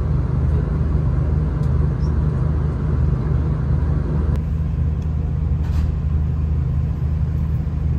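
Cabin sound of a V/Line diesel regional train: a steady low engine hum under a running rumble as it creeps along the platform. About four seconds in the rumble drops away, leaving the low hum of the engine with the train at the platform.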